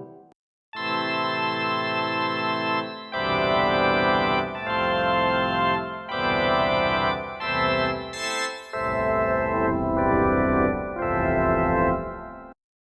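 Roland D-50 software synthesizer preset playing a run of held chords that change every one to two seconds. It starts after a brief silence and cuts off abruptly near the end.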